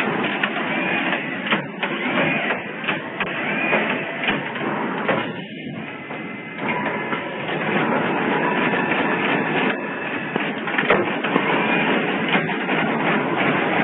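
Automatic PCB component insertion machine running: continuous mechanical clatter and clicking, with a short rising-and-falling motor whine now and then.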